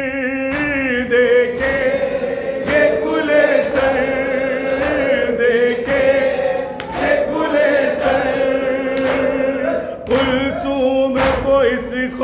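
Male voices singing an Urdu noha, a Shia mourning lament: a lead reciter's ornamented melody over a sustained chorus note. Sharp slaps come about once a second, in the rhythm of matam chest-beating.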